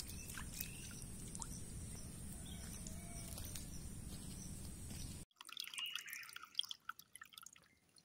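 Faint drips and small plinks of water over a steady low outdoor rumble. About five seconds in it cuts off to near silence, leaving only a few faint high chirps.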